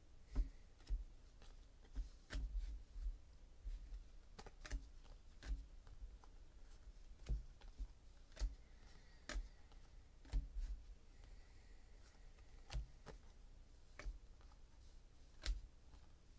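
Trading cards being flipped through by hand, one card at a time off a stack: irregular sharp clicks and snaps as the card edges slide off one another.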